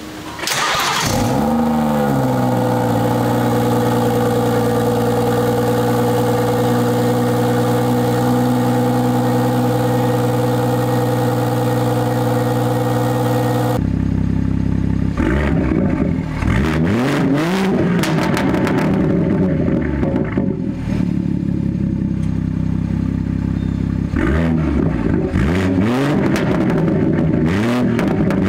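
BMW 440i's B58 turbocharged straight-six firing up through a valved M Performance exhaust about half a second in. It flares and settles into a steady cold-start high idle. After a cut, the warmed-up engine is blipped through a series of quick revs that rise and fall.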